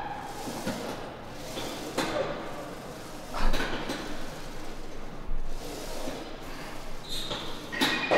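Gym equipment giving a few sharp knocks and clanks over steady room noise.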